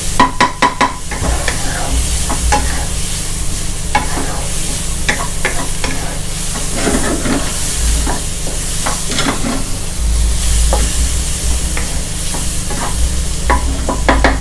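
Shrimp and garlic frying in oil in a nonstick wok, sizzling steadily while a wooden spatula stirs them, scraping and knocking against the pan. There is a quick run of louder knocks in the first second and a few more near the end.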